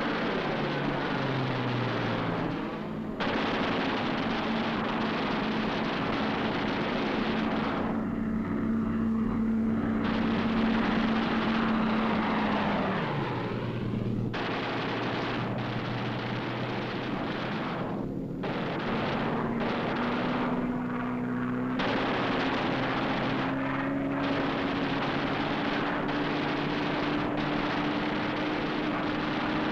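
Piston-engined fighter plane's engine droning on an old film soundtrack. Its pitch holds, drops about halfway through, then climbs slowly near the end, with several abrupt changes where the sound is cut.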